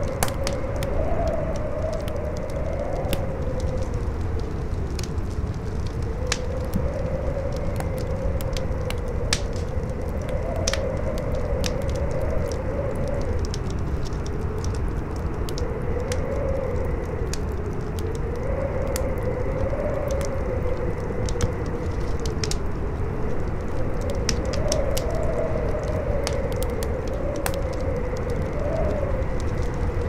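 Campfire crackling with frequent sharp pops, under a howling wind whose whistling pitch wavers slowly up and down over a steady low rush.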